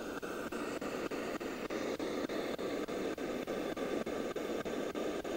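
Spirit box sweeping through radio frequencies: a steady hiss of static, chopped into short even steps several times a second.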